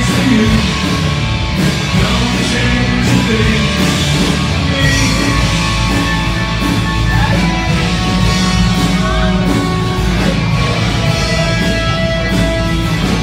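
Rock band playing live, with electric guitar, bass and drums over a steady beat.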